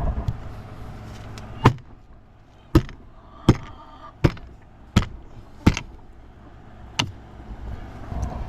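A series of sharp knocks, about seven of them, mostly about three-quarters of a second apart, starting a little under two seconds in.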